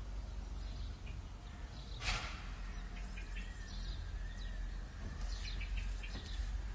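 Outdoor ambience: a steady low rumble with scattered bird chirps, a brief noisy burst about two seconds in, and a faint wavering tone in the middle.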